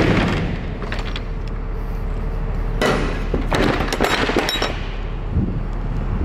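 A run of sharp metal rattles and clanks, a few seconds in, from a box truck's roll-up rear door and its latch being handled, over a steady low hum.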